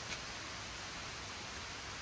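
Waterfall: the steady rushing hiss of falling water, with a faint tick or two.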